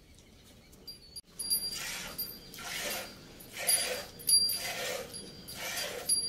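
A mother cow licking her young calf, rough rasping tongue strokes about once a second.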